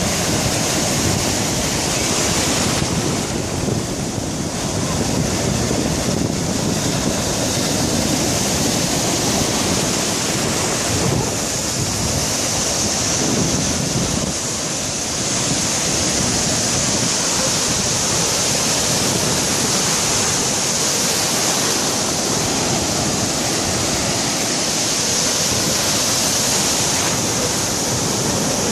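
Ocean surf breaking and washing in around shin-deep water: a steady, continuous rush of waves.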